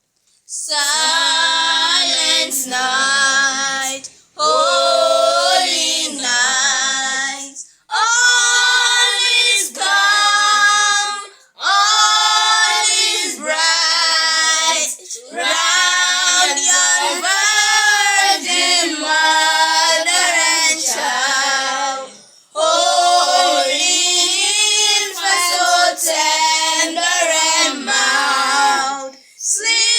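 A high female voice singing a melody in phrases of about three to four seconds, with short breaths between them.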